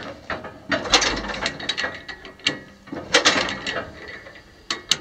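Hand crank turning over a vintage Wisconsin four-cylinder air-cooled engine, clattering and ratcheting in three spells of cranking while the engine has not yet caught.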